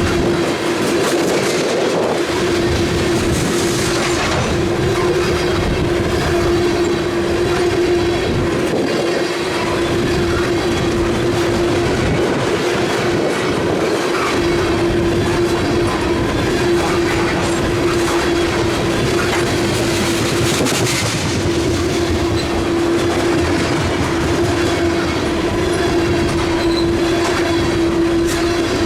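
Freight cars of a CSX freight train rolling past, wheels clicking over the rail joints, with a steady high wheel whine running under the rumble.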